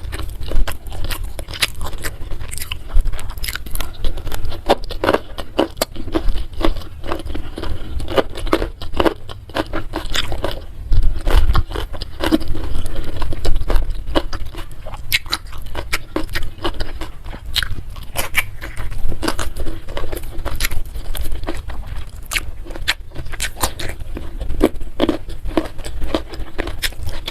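A person chewing and crunching food close to the microphone, biting into young jengkol beans, with many sharp crunches and wet mouth clicks in an irregular run.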